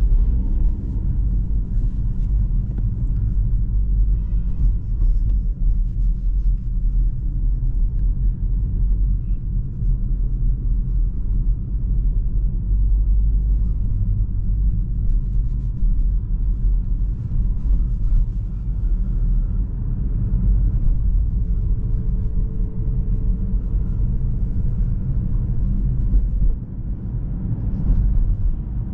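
Steady low rumble of the BMW 116d's 1.5-litre three-cylinder diesel and its tyres at town speed, heard from inside the cabin.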